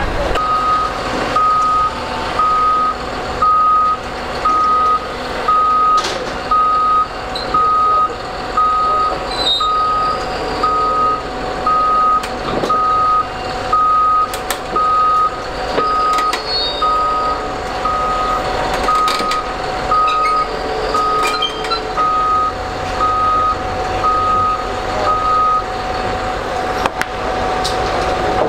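Heavy-equipment backup alarm beeping steadily at one pitch, about once a second, stopping near the end, with an engine running underneath.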